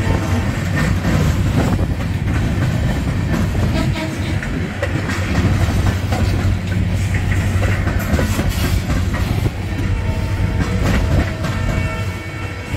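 Freight cars of a Norfolk Southern mixed manifest local rolling past: a steady rumble of wheels on rail with a run of clicks over the rail joints. Faint steady high tones from the running gear come through at the start and again near the end.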